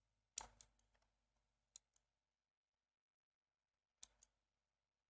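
Computer mouse clicking faintly: a quick run of clicks in the first second, a pair near two seconds and another pair about four seconds in, with near silence between.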